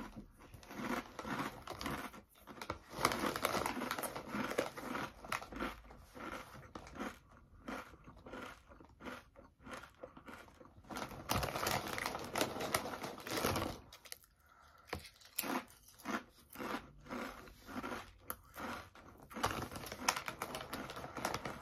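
Close-up crunching and chewing of thick, kettle-style Lay's Crunch Tators potato chips. A run of irregular sharp crackles eases off for a moment about two-thirds of the way through, then resumes.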